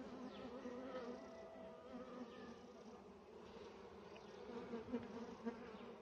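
Western honey bees buzzing over an opened hive frame: a faint, steady hum of many bees, with several pitches that waver slightly.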